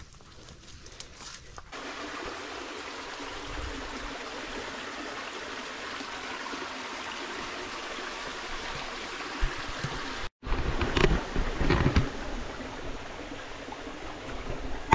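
Small forest spring trickling steadily into a rock pool, a running-water hiss that sets in about two seconds in. After a sudden break about ten seconds in, louder irregular thumps and rustling close to the microphone.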